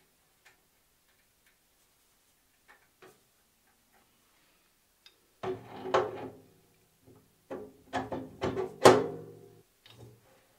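A few faint clicks and small knocks from the saw's metal handwheel being fitted, then background music with plucked bass notes starting about halfway through, the loudest near the end.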